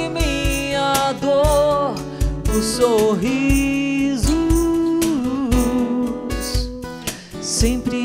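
Live acoustic worship song: a male voice singing long, gliding notes over two acoustic guitars, with low cajón thumps keeping the beat.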